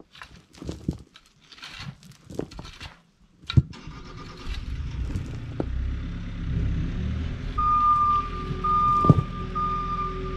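Shovel strokes scraping and dumping soil, several short scrapes with pauses. About four seconds in, a machine engine starts a steady low running sound. A high tone repeats in short dashes over it near the end.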